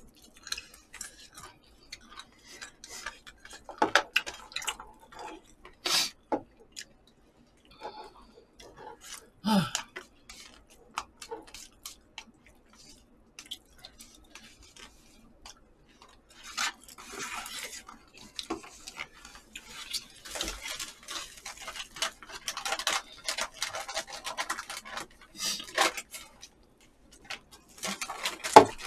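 Eating sounds: spoons and chopsticks clicking and knocking against paper cups and takeout containers, with a denser stretch of scraping, rustling noise about halfway through.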